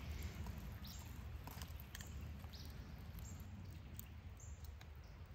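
Quiet woodland ambience with a few soft clicks of a spoon on a metal camp pot and bowl, and a few brief, faint high chirps.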